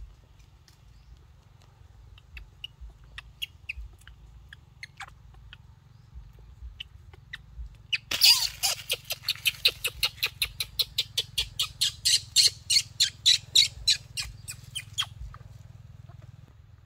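An animal calling: a loud run of sharp, evenly spaced calls, about four a second, that starts suddenly about eight seconds in and goes on for some seven seconds. Faint scattered chirps come before it.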